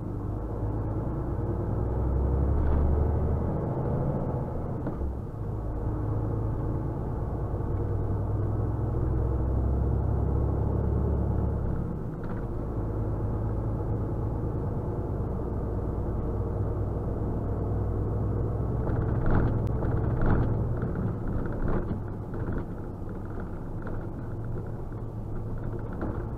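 Truck's diesel engine running, with road noise, heard from inside the cab while driving. The low engine note shifts a couple of times, and a few light knocks come about three quarters of the way through.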